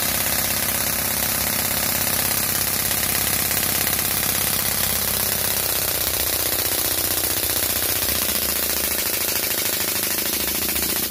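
Pneumatic injector puller air hammer running continuously in a fast, even hammering to drive a stuck diesel injector out; it cuts off suddenly near the end.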